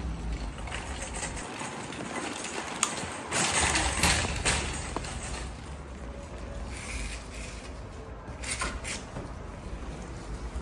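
A shopping cart rolling and rattling as it is pushed, with a steady low rumble and a few louder clatters about three to four and a half seconds in.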